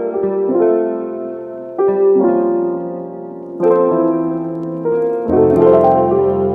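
Background piano music: held chords changing every second or two, with a low bass note joining about five seconds in.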